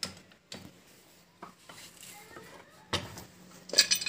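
Spanners clinking and knocking on the steel casing and pipe of a V4 submersible pump as it is tightened: a few separate taps, then a quicker run of ringing metal clinks near the end.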